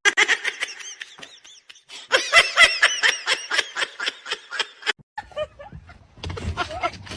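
High-pitched laughter in rapid, repeated bursts of about four or five a second, dying away after a few seconds. A low rustling noise follows near the end.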